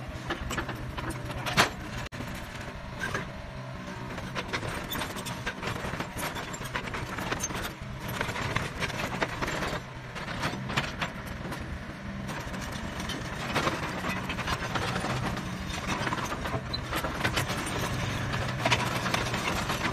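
Kobelco SK60 mini excavator's diesel engine running steadily while the machine works, with irregular metal clanks and knocks over it; the sharpest knock comes about one and a half seconds in.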